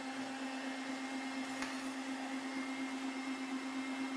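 Electric stand mixer running at a steady speed, a steady motor hum as its whisk beats whole eggs with salt and a little water until foamy.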